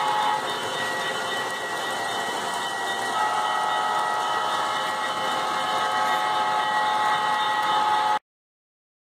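Sound-equipped model train running, with the rolling noise of the train under a multi-tone train whistle from its sound decoder: a held chord that ends just after the start and sounds again from about three seconds in for about five seconds. All sound cuts off abruptly near the end.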